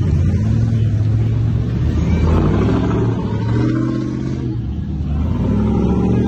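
Hummer H2 V8 engines rumbling as the trucks drive slowly past one after another, the sound swelling about two seconds in and again near the end.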